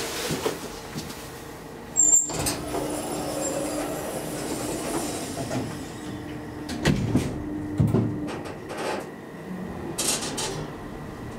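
KONE traction elevator car in motion, heard from inside the car: a sharp click about two seconds in, then a steady running hum with a low drone as the car travels, with a couple of knocks near seven and eight seconds in.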